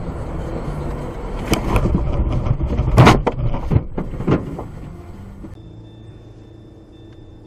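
Car road noise heard from inside the cabin, broken by several loud bangs in the middle, the loudest about three seconds in. After about five and a half seconds it drops to a quieter steady road noise with a faint high whine.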